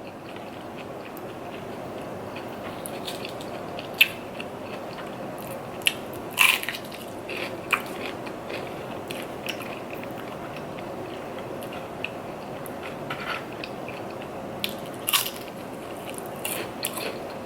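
A person eating Chinese takeout close to the microphone: steady chewing, broken by a handful of sharp clicks and crunches from bites and utensils.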